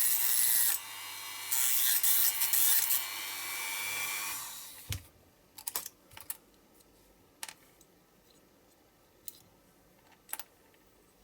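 A small power tool running loudly with a steady hum, its pitch and level shifting while it works, then spinning down and stopping about four and a half seconds in. After it, a handful of light clicks and taps.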